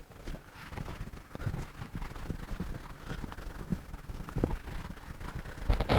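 Faint, irregular taps and scratches of a pen writing, with a low room hiss.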